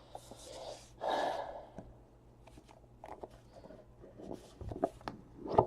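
A trading-card box being handled and opened: soft rustling and scattered light clicks of cardboard, with a couple of breaths about a second in.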